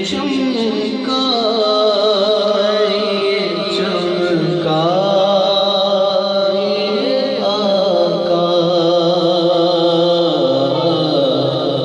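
A man's voice singing the slow opening of an Urdu naat in long, drawn-out melismatic phrases that glide up and down in pitch, over a steady drone.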